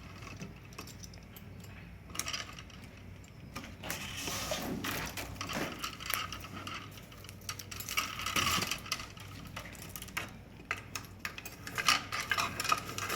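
Light, irregular clicks and small metallic clinks of house wiring being handled and bent into place inside a metal single-gang handy box.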